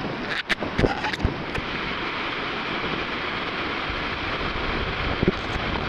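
River rapids on a whitewater slalom course rushing steadily. A few sharp knocks sound between about half a second and a second and a half in, and one more near the end.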